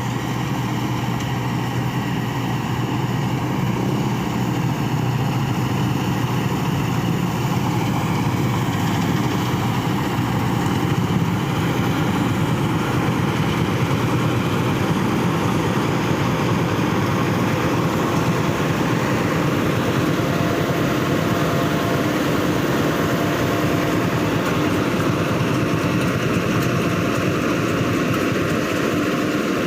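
Rice combine harvester running steadily while cutting paddy: a loud, even engine drone with the whir of the threshing machinery.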